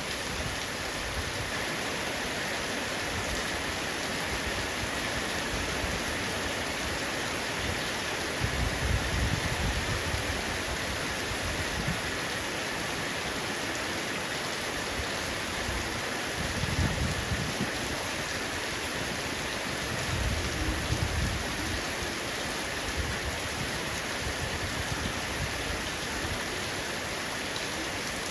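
Heavy rain falling steadily on a roof, an even hiss of drops, with a few swells of deep low rumble.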